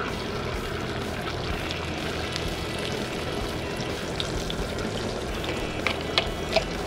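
Beaten eggs poured from a bowl onto a hot steel discada, sizzling steadily as they spread over the disc. Near the end a few sharp clicks as a fork scrapes and taps the last of the egg out of the bowl.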